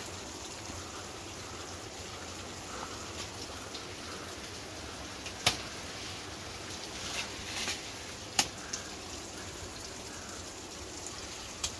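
Steady rushing of a flowing stream, with a handful of sharp clicks, the loudest about five and a half and eight and a half seconds in.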